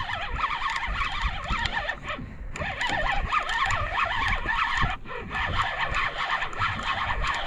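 Spinning reel whirring and clicking as a fish on the line is reeled up, over a low rumble. The whirring breaks off briefly about two seconds in and again about five seconds in.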